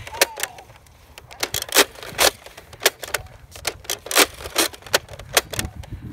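Footsteps on a concrete sidewalk, sharp steps at about two a second.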